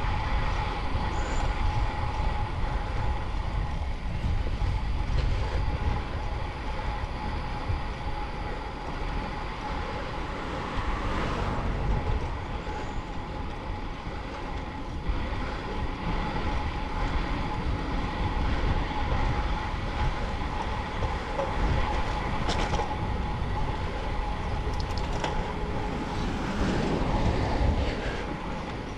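Wind buffeting the microphone of a camera mounted on a moving road bike, with the tyres rolling on asphalt, a steady noise that is heaviest in the lows. A faint steady whine sits underneath.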